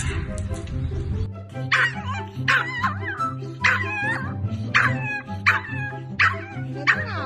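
A dog yipping and barking over background music: sharp, high calls with bending pitch, about one every two-thirds of a second, starting about a second in.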